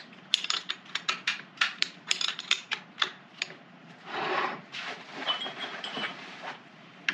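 Metal clinks, clicks and knocks of tools and lathe parts being handled, a quick run of them in the first few seconds, then a short scrape about four seconds in and a brief faint squeak a little after.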